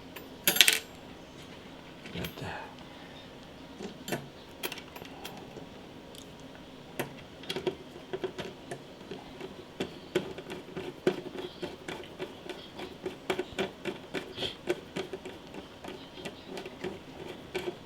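Light clicks and clatter of small hard computer parts being handled and fitted, with one louder clatter about half a second in, then a run of quick light clicks through the second half.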